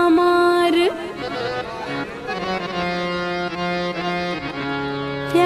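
Bengali folk song with a reed instrument like a harmonium or accordion: a singer's held note ends about a second in, then the instrument plays on alone, more quietly, until the louder part comes back at the very end.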